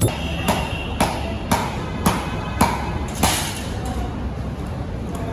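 A coconut knocked hard against a stone to crack it open, seven sharp knocks about two a second, then they stop.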